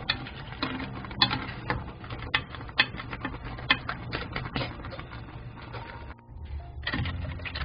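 A spoon stirring a pot of crab stew, clicking and knocking irregularly against the crab shells and the pot several times a second, over a low steady rumble of the boiling broth. The clicking pauses briefly about six seconds in.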